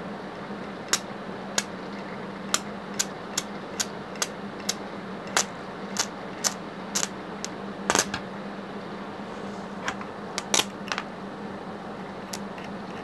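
Stick-welding arc from a faulty inverter welding machine: about twenty sharp, irregular crackling pops over a steady hum, stopping about eleven seconds in. The machine welds only briefly and then cuts out.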